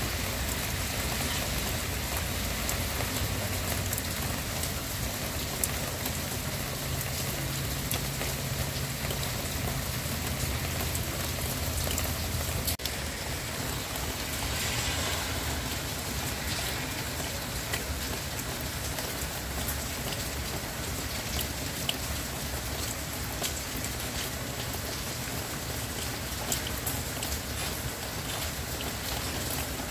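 Steady rain falling: an even hiss with scattered sharper drop impacts.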